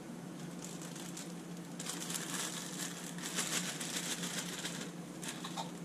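Plastic bag of carrot sticks crinkling as it is handled and the carrots are tipped out of it into a slow-cooker crock of chopped vegetables, starting about two seconds in, with a short rustle again near the end.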